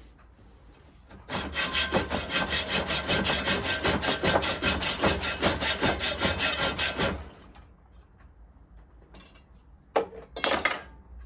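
Hand hacksaw cutting through a rusty steel round rod, quick steady back-and-forth strokes for about six seconds before stopping. Two short knocks follow near the end.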